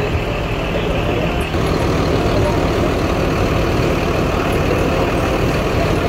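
Coach bus engine idling, a steady low hum with street noise around it.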